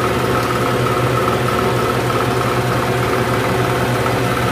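Diesel injection-pump test bench running steadily, driving a six-cylinder in-line injection pump for a 6D16 engine during calibration. It gives a constant hum with several steady tones above it.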